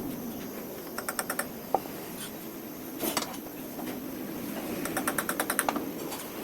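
Hand-tool work on metal: short runs of rapid, evenly spaced clicking, once about a second in, briefly in the middle and in a longer run near the end, over a steady low background hum.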